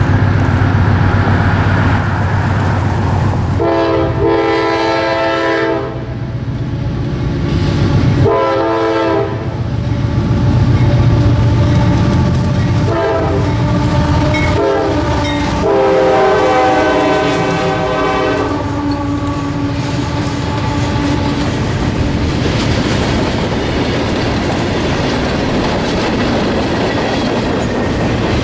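CSX freight train's diesel locomotive sounding its air horn over the rumble of its engines as it approaches: two long blasts, three short toots, then one long final blast, the pattern used for a road crossing. The lead engines then pass and freight cars roll by, their wheels clacking over the rail joints.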